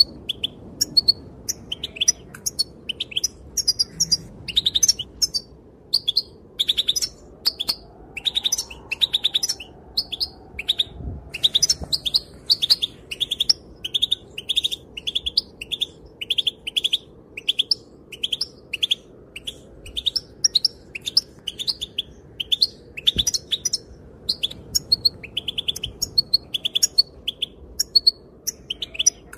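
Female European goldfinch calling: short, high chirping call notes repeated over and over, a looser twittering at first, then a steady run of a little over one call a second.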